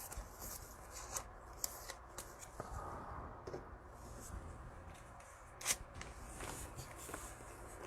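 Football trading cards handled by hand, sliding and flicking against each other in a run of light clicks and rustles, with one sharper click a little before six seconds in.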